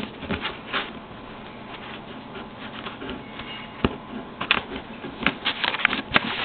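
Scissors cutting open packaging, with scattered snips, clicks and rustling; a sharp click about four seconds in and a quicker run of clicks near the end.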